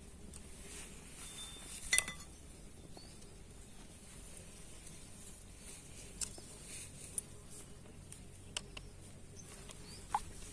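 Quiet background with a few scattered small clicks and one sharper metallic clink, with a brief ring, about two seconds in.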